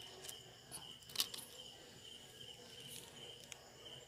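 Faint, steady high-pitched insect trill, with a few soft clicks and one sharper tap about a second in.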